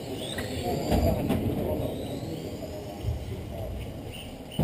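Electric RC cars racing on an indoor track: high motor whines rising and falling in pitch as the cars accelerate and brake. A few sharp clicks and knocks come about a second in.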